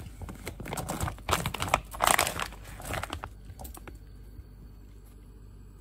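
Plastic bag of frozen dumplings crinkling as it is handled, in irregular bursts for about three seconds, then giving way to a faint low hum.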